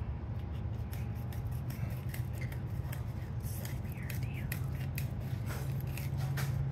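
Fillet knife slicing through a lake trout, a run of short crisp cutting and scraping strokes, over a steady low hum.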